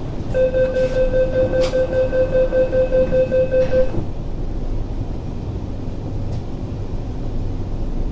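MTR SP1900 (IKK-train) door-closing warning: a rapid beeping tone, about four beeps a second for three and a half seconds, while the doors slide shut. Then the steady low rumble of the train's running equipment.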